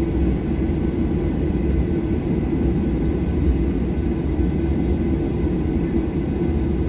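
Steady low rumble of cabin noise in a Boeing 737-800 taxiing, its CFM56 turbofan engines running.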